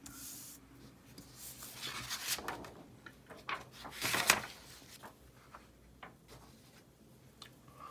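Sheets of paper being moved and swapped on a wooden tabletop: soft rustling and rubbing with a few light knocks, loudest about four seconds in.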